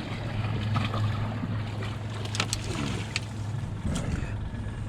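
A boat's motor hums steadily on the water, with a few sharp knocks and clicks from handling on deck.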